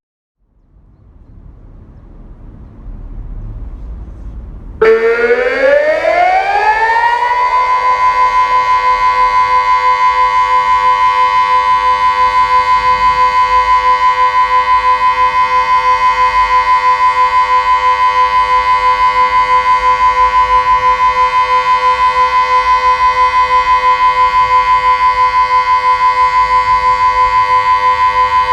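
Delta 6-Blau civil defence siren starting about five seconds in, its pitch rising for a couple of seconds to one steady loud tone that holds. It is sounding the Austrian 'Entwarnung' all-clear signal, a continuous tone. Before it starts there is only low background noise.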